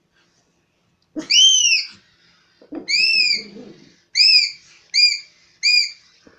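A small dog giving five high-pitched squealing yelps, each rising and falling in pitch and starting with a short low grunt; the first two are longer, the last three shorter and quicker.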